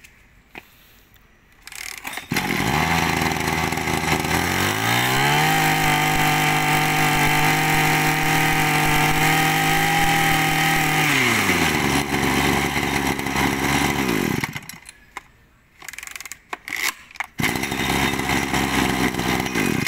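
Kawasaki TJ27 27cc two-stroke brush cutter engine starting and idling, then revved up and held at high speed for several seconds before dropping back to idle and cutting off. After a short pause with a few clicks, it runs at idle again near the end.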